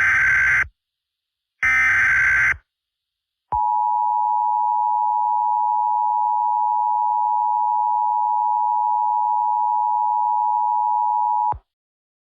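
Emergency Alert System signal: the end of the second and then the third short burst of the warbling digital SAME header, followed by the two-tone EAS attention signal held steady for about eight seconds before cutting off. It announces a civil danger warning.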